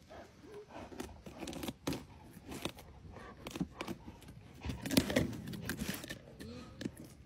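Jaguar gnawing and biting into a pumpkin: irregular crunching and tearing of the rind, with scattered crackles and scrapes, loudest about five seconds in.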